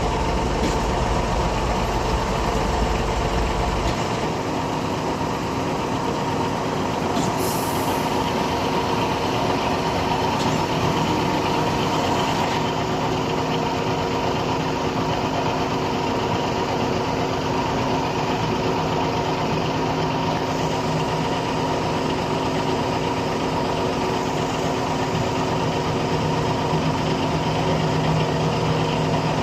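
Putzmeister truck-mounted concrete pump running steadily, its diesel engine and hydraulics giving a constant drone with steady tones. The deepest rumble drops away about four seconds in, and a brief high hiss comes about seven seconds in.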